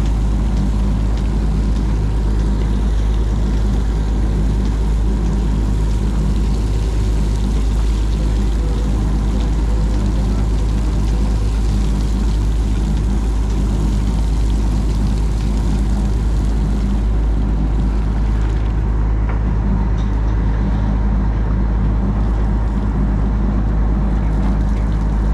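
Fishing trawler's engine running with a steady deep drone, over the splash and rush of seawater streaming out of the hoisted cod end of the trawl net into the sea; the rushing water thins out about two-thirds of the way through.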